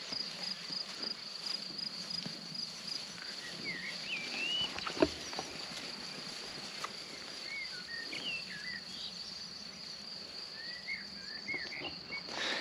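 Crickets chirping steadily in the grass, with a songbird singing short warbling phrases now and then. A single sharp knock about five seconds in.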